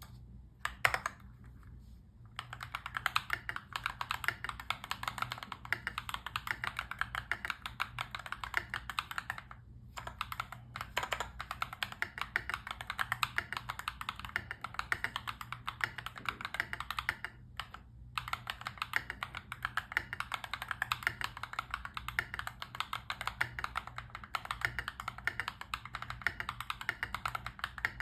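Continuous fast typing on a mechanical keyboard with PBT Cherry-profile keycaps: a dense run of key clacks that stops briefly three times.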